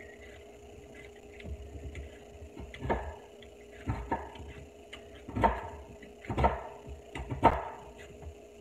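Kitchen knife cutting potatoes on a cutting board: short knocks of the blade on the board, about one a second from a few seconds in, over a faint steady hum.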